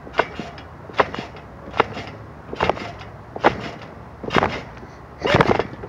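A child bouncing on a trampoline: a thump at each landing, seven in a steady rhythm a little under a second apart, the last one, about five seconds in, the loudest.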